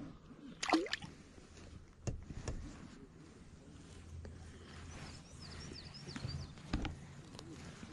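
Faint birds chirping, with a few sharp knocks and, about a second in, one brief loud sound that falls in pitch.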